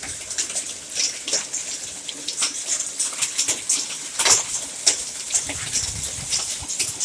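Dime-sized hail hitting a canopy overhead and the parked cars: a dense, irregular patter of sharp ticks and taps over a steady hiss of falling rain and ice.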